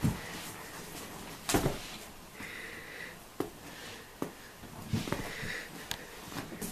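A dog sniffing at a plush toy in two short bursts, among thumps and clicks from paws and the toy moving on a wooden floor. The loudest thumps come at the very start and about a second and a half in.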